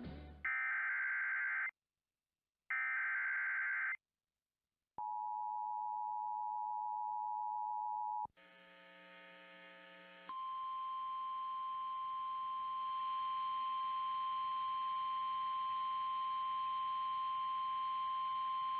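Emergency Alert System signalling: two short screeching bursts of digital header data, then the two-tone EAS attention signal for about three seconds. After a brief hiss, NOAA Weather Radio's steady single-pitch 1050 Hz warning alarm tone plays over radio static for about nine seconds.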